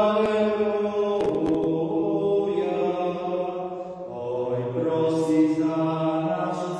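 Slow church hymn sung with long held notes that change every second or so, with a couple of brief clicks about a second in.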